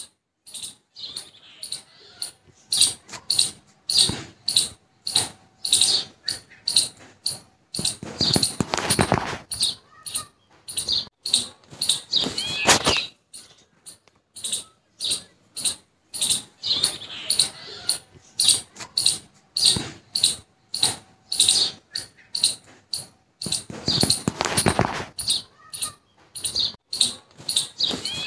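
Rhythmic high-pitched chirps, about two to three a second, in a sequence that repeats itself about every sixteen seconds: a looped sound track laid over the pictures.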